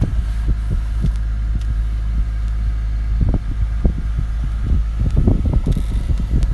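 Steady low machine rumble with a few faint steady tones above it. Wind buffets the microphone, with scattered low thumps.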